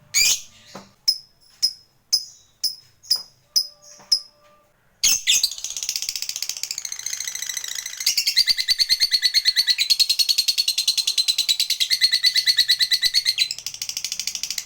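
Lovebird calling: a series of short, sharp, high chirps about two a second, then a long rapid chattering trill, the 'ngekek' song prized in fighter lovebirds, lasting about nine seconds before it cuts off suddenly.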